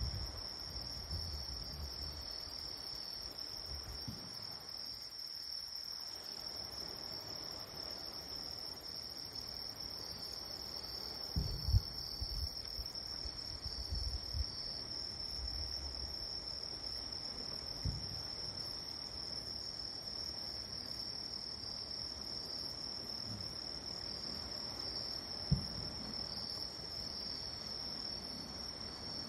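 Crickets chirring steadily in a high, even drone, with a few short low thumps, the loudest at about twelve seconds in and near the end.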